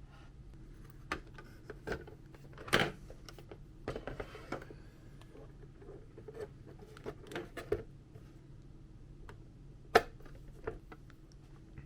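Irregular small clicks and knocks of mechanical keyboard parts being handled during a build, over a low steady hum; the sharpest click comes near the end.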